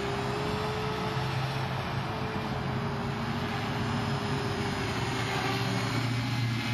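Walkera V450D03 electric RC helicopter in flight: its brushless outrunner motor and rotor give a steady whine that wavers slightly in pitch, with a lower hum beneath.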